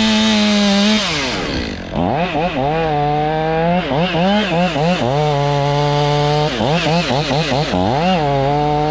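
Two-stroke chainsaw running at high revs, dropping off the throttle about a second in, then revved up and down again and again with short stretches held at full throttle.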